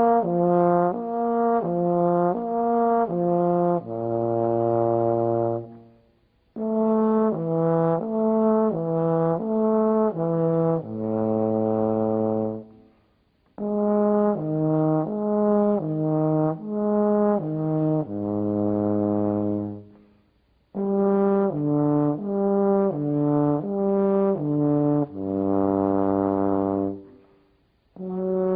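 Low brass instrument playing a slurred interval exercise for jaw movement between registers. It plays four phrases of quick alternating notes, each ending on a long held low note, with short breaths between the phrases.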